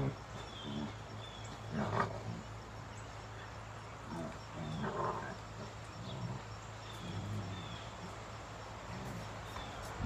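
Young wolf dogs play-fighting, growling low and rumbling, with louder snarls about two seconds in and again around five seconds.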